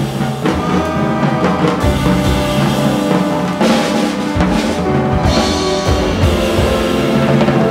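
Jazz ensemble playing live: drum kit to the fore over upright bass, with a horn section of saxophones, trumpet and trombone.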